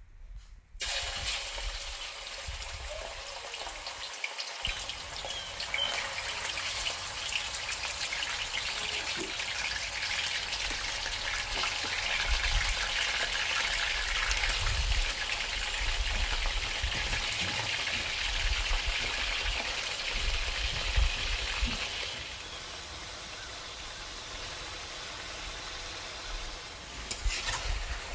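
Raw chicken pieces frying in hot oil in a karahi: a steady sizzle that starts about a second in, grows louder towards the middle and eases off about two-thirds of the way through. A spatula begins stirring near the end.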